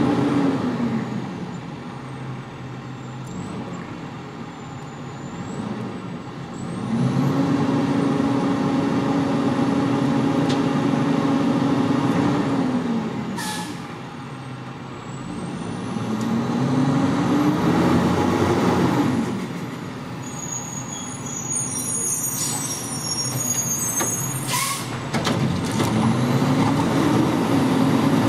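Diesel engine of a front-loader garbage truck with a Curotto-Can cart arm revving up, holding and dropping back three times, with two short hisses of the air brakes about halfway and near the end.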